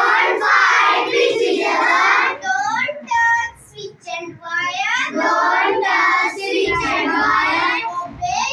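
Children singing a song together, with a short break about three seconds in.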